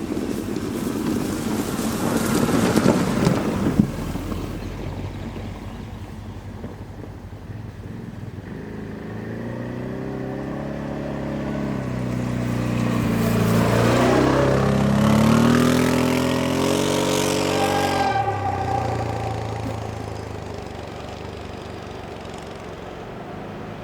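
A freight train hauled by a VL11M electric locomotive running past: wheel-on-rail rumble at first, then a droning hum that swells, bends down and up in pitch, and cuts off sharply about two-thirds of the way in.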